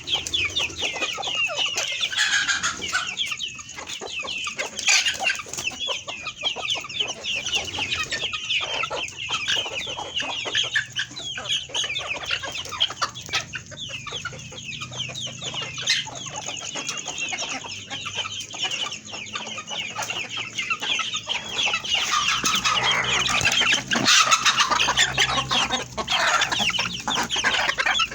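A large flock of chickens in a poultry house calling all at once. Many overlapping clucks and cheeps run together into a dense, continuous chatter.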